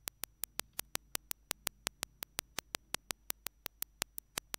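A rapid, evenly spaced train of sharp clicks, about six or seven a second, over a faint low hum.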